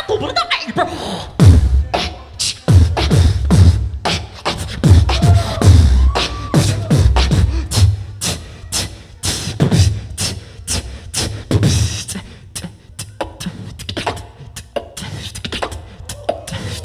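Solo beatboxing amplified through a handheld microphone: deep kick-drum hits and sharp snare and hi-hat clicks in a quick rhythm, with short sliding vocal tones mixed in. After about twelve seconds the deep kicks drop away, leaving mostly the clicking rhythm.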